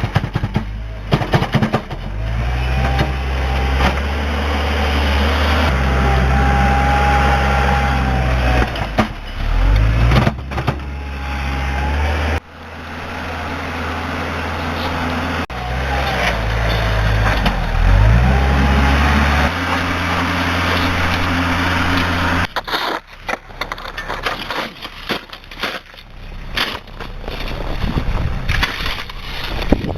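A machine engine running and revving up and down, with a whine above it that rises and falls. About two-thirds of the way in the engine sound drops away, and irregular crunching and scraping take over.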